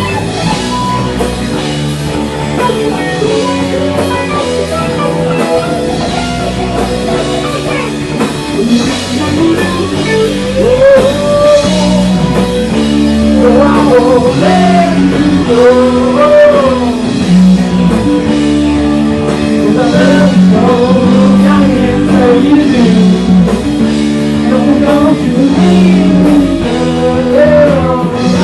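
Indie rock band playing live in a rehearsal room: electric guitar, bass guitar and drum kit, with a male lead vocal singing over them from about ten seconds in.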